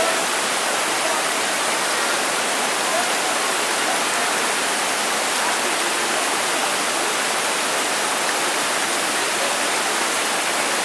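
The Karaçay river running fast over rocks and rapids, a steady rushing of water.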